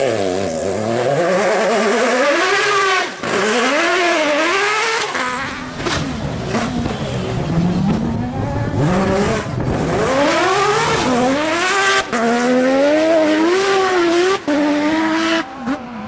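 A rally car's engine revving hard under full throttle, its pitch climbing and dropping again and again with gear changes and lifts off the throttle. The sound breaks off abruptly several times between short passes.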